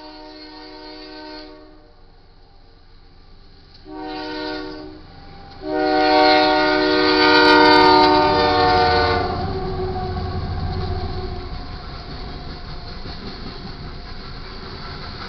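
GE AC44CW locomotive's air horn sounding for the grade crossing: a blast that ends about a second and a half in, a short blast around four seconds, then the loudest, long blast from about six to nine seconds, the usual long-long-short-long crossing signal. The locomotive and loaded coal cars then roll through the crossing in a steady rumble with wheel clatter.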